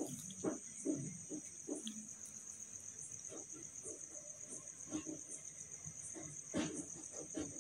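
Large tailoring scissors cutting through cotton-like cloth on a table in a series of short snips and rustles, the strongest near the end. A steady high-pitched trill runs underneath.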